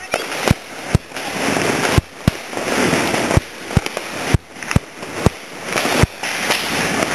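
Fireworks going off: a run of sharp bangs at uneven intervals, about one or two a second, over a steady hiss.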